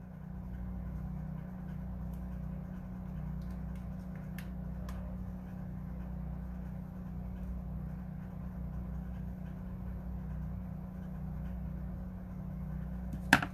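Steady low hum with no speech, broken by a couple of faint clicks around the middle and one sharper click near the end.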